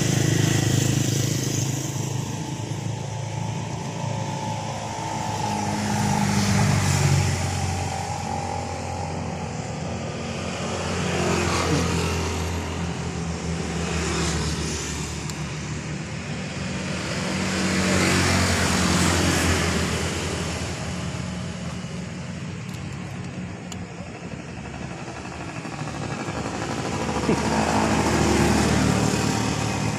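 Road traffic: motor vehicles passing one after another, each swelling and fading away, over a steady low engine hum.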